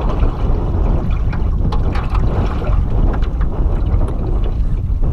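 Wind rumbling on the microphone, with choppy water slapping against the hull of an aluminum john boat.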